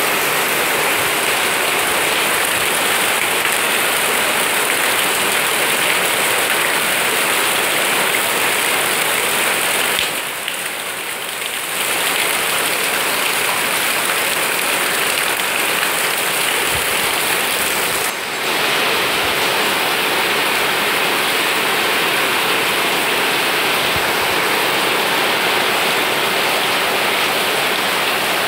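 Heavy rain falling steadily on garden plants, a constant loud hiss that eases briefly twice.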